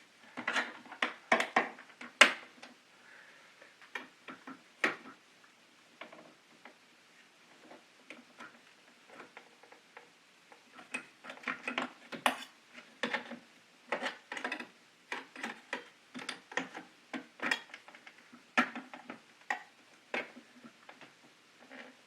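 Irregular plastic clicks, taps and knocks as the case of a KeyTronic E3601 keyboard is pried apart and its snap-in clips are worked loose. The clicks come in clusters, the sharpest about two seconds in and another run through the second half.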